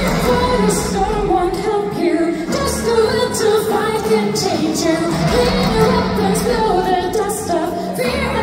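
Live symphonic metal band playing, with a female lead voice singing a melody of held notes over the band.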